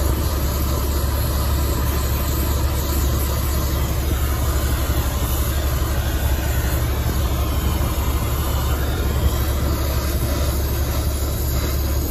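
Brazing torch flame burning with a steady rushing hiss while it heats the copper refrigerant line joints at a condenser's service valves.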